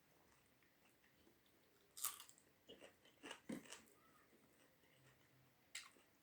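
Close-up eating sounds: a person biting and chewing a mouthful of food, with a few short crunches and wet mouth clicks, the loudest about two seconds in and others at about three, three and a half and six seconds.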